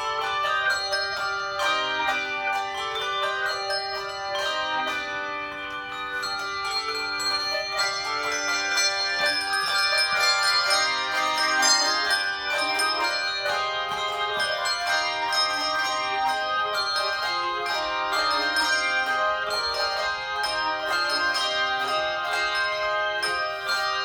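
Handbell choir playing a piece: many handbells rung in turn, their notes overlapping and ringing on, with new notes struck several times a second.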